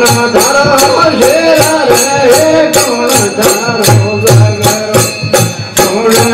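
Rajasthani devotional bhajan: a man sings over the drone of a tandura while manjira cymbals clash in a steady beat about three times a second, with low drum beats underneath.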